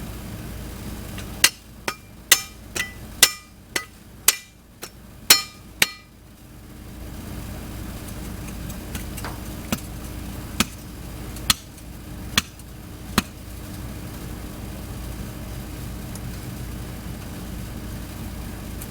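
Hammer blows on metal: a quick run of about ten ringing strikes, then a pause and five slower strikes about a second apart, over a steady low hum.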